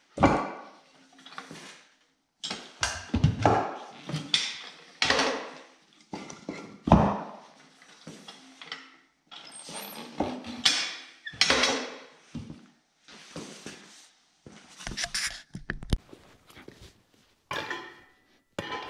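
Irregular thunks, knocks and clanks as a knobby motorcycle wheel is flipped and handled on a wooden block on a concrete floor and the steel lever of a homemade bead breaker is pushed down against its tire to break the bead.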